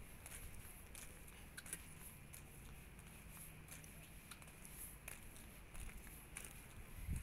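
Quiet background: a low steady rumble with faint, irregularly spaced light clicks.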